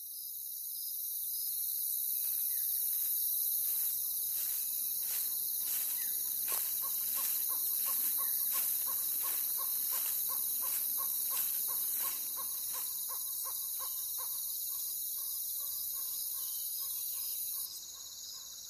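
Ambient intro to a rap track: steady high cricket-like chirring, with an even ticking about twice a second and short beeping tones joining about a third of the way in. The ticking fades after about two-thirds, and the high chirring cuts off shortly before the end.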